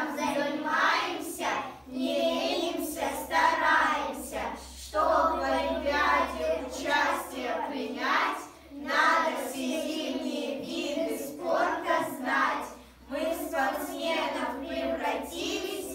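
A group of young girls singing together in unison, in phrases with short breaks between them.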